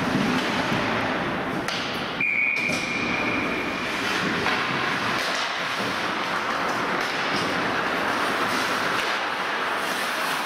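Ice hockey rink sounds: a steady noisy background with scattered knocks of sticks and puck, and a referee's whistle blown about two seconds in, one flat tone held for under two seconds.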